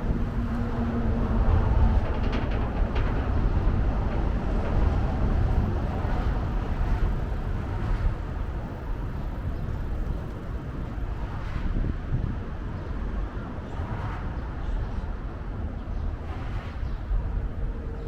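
Outdoor city ambience: a steady low rumble of passing vehicles.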